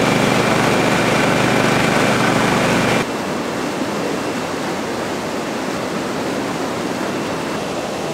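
Fast river rapids rushing in a steady loud roar of water. A steady low hum sits under it for the first three seconds, then stops at a cut, leaving only the water.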